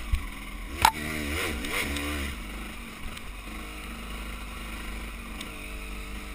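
Enduro dirt bike engine running under the rider, revving up and down in short bursts of throttle between about one and two and a half seconds in, then running steadily. Two sharp knocks, one right at the start and a louder one just under a second in, as the bike rides over the rough trail.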